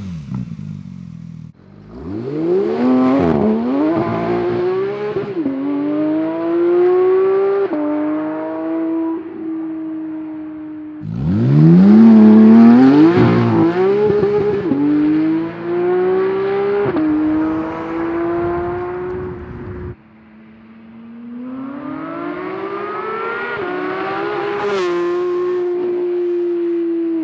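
Porsche 992 GT3's naturally aspirated flat-six exhaust on three drive-by runs, accelerating hard through the gears. Engine pitch climbs and drops back at each upshift, then holds steady. The runs are separated by abrupt cuts, and the second is the loudest.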